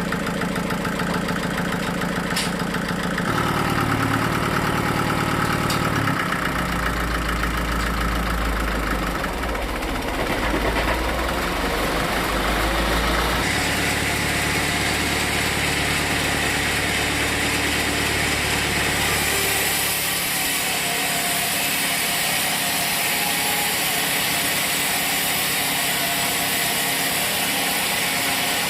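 Engine of sawmill machinery running steadily, its note shifting abruptly a few times.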